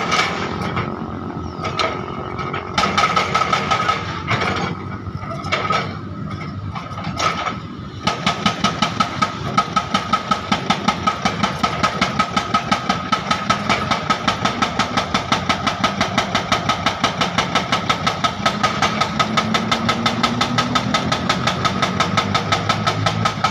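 Excavator's diesel engine running under load with a steady high hydraulic whine, uneven for the first several seconds, then settling into a fast even pulsing of about four to five beats a second while it breaks up old asphalt.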